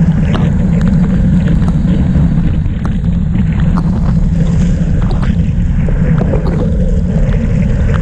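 Wind buffeting the microphone of a camera riding on a racing bicycle at speed in the rain: a loud, steady low rumble, with scattered small ticks of raindrops hitting the camera.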